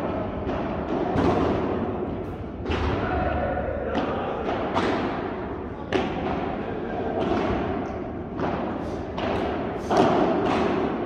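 Padel balls knocked by rackets and bouncing, in irregular knocks about one or two a second, each echoing in a large indoor padel hall over a steady background hum of hall noise.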